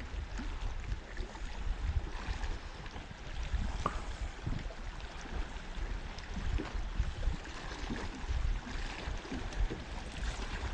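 Water lapping against the hull of a small fishing boat, a steady wash with a low rumble.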